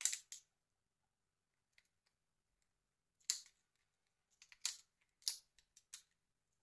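Sharp little clicks and snaps of plastic phone parts and small hand tools being handled during disassembly of a Nokia 2720a flip phone: about eight separate clicks, the loudest right at the start and around three and five seconds in.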